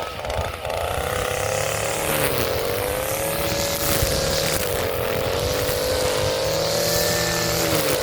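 Echo SRM-230 string trimmer's small two-stroke engine revving at high speed while cutting. Its pitch sags briefly twice and recovers. The owner hears this as bogging down when the line hits the grass, a sign the newly fitted carburetor needs a little adjustment.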